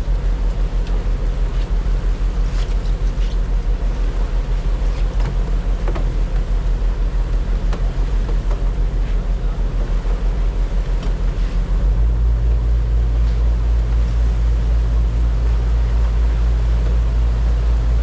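Boat engine running under way, with wind and water noise. About twelve seconds in, the low engine drone gets louder and steadier.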